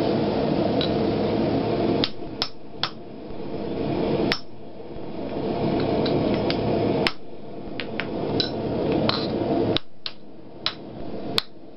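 A hand hammer striking the top die of a blacksmith's guillotine fuller tool as hot steel is fullered: about a dozen sharp metallic strikes at an uneven pace, some in quick pairs. A steady hum runs underneath and drops away about two seconds in, just as the strikes begin.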